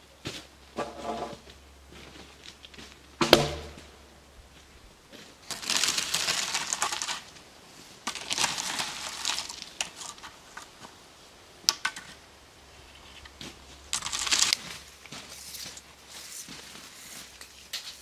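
Crushed gravel crunching and scraping in several short spells. There is one heavy thud with a brief ring about three seconds in.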